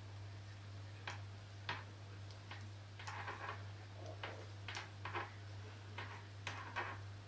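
Large knitting needles clicking and scraping against each other as stitches are purled, in faint, irregular ticks about once or twice a second, over a steady low hum.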